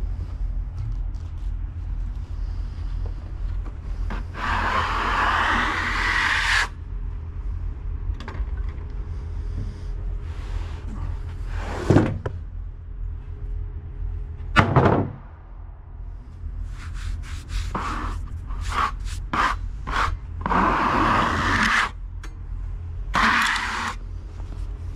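Wood-Mizer band sawmill running steadily, with several rasping spells of one to two seconds and two sharp knocks about halfway through.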